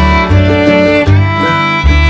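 Background music: a fiddle tune over a bass line whose notes change about every half second to a second.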